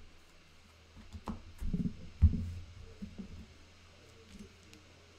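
Handling noise at a card-game table: a few light knocks, then one loud low thump about two seconds in, as cards and game pieces are set down.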